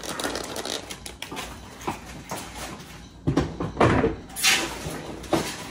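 Kitchen handling sounds: a spatula and plate clinking and scraping, then scattered knocks and bumps as things are moved about, with a louder cluster of knocks a little past halfway.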